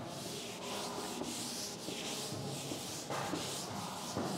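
A duster rubbing across a chalkboard, erasing chalk writing in repeated back-and-forth strokes, about two a second.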